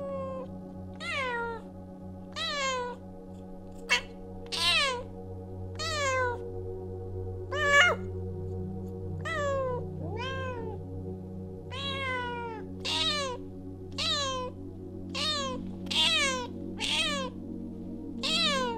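Bengal cat in labor meowing over and over: about fourteen short meows, each falling in pitch, roughly one a second, over soft background music.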